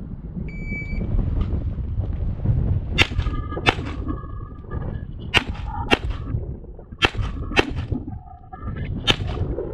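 Shot-timer beep about half a second in, then a pistol fired seven times, mostly in quick pairs about half a second apart, as the shooter engages targets on a stage.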